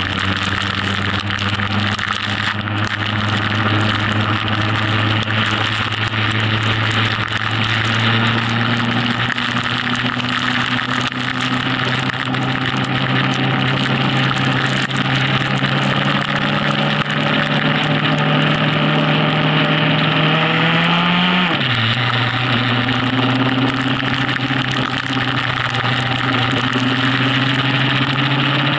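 Motorcycle engine pulling at motorway speed, its pitch slowly rising, then dropping sharply about two-thirds of the way through as it shifts up a gear and climbing again. A steady hiss of wind and rain spray runs under it.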